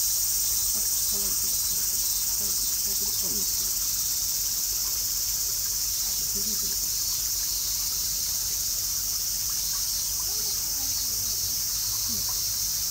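Steady, high-pitched insect chorus.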